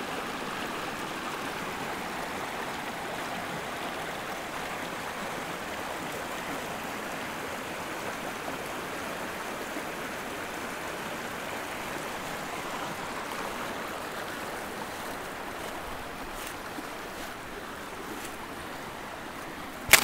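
Mountain creek rushing and splashing over granite boulders in small cascades: a steady sound of running water that eases slightly in the last few seconds. A single sharp knock right at the end.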